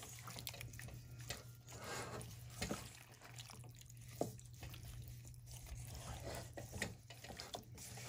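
Raw chicken wings being hand-mixed in marinade and seasoning in a metal pot with a vinyl-gloved hand: faint, irregular wet squelches and slaps.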